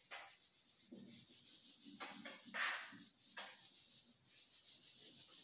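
A whiteboard being wiped clean by hand: a palm rubbing across the marker-covered surface in a series of short, faint swipes.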